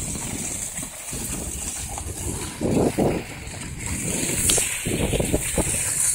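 Skis sliding over snow at speed, a steady hiss over a low rumble of wind on the microphone, with a few muffled thumps about three seconds in and again near five seconds.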